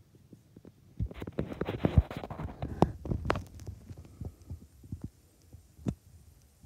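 Soft thumps and rustling, densest through the first half, followed by a few isolated knocks.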